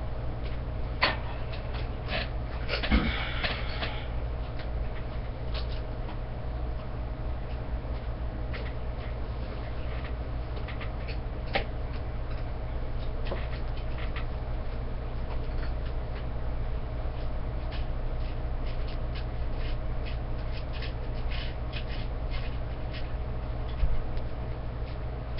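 Scattered clicks and light rattles of metal antenna elements and small plastic parts being handled during assembly, with a louder rustle about three seconds in and a knock near the end, over a steady low hum.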